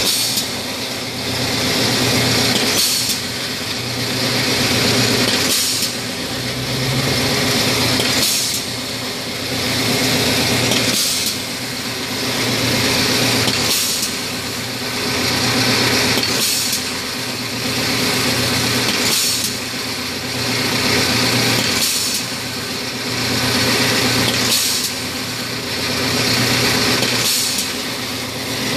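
Wire straightening and cutting machine running, its straightener humming steadily as the wire feeds through. A sharp click, the cutter going through the wire, comes about every 2.7 seconds, and the level swells and falls with each cycle.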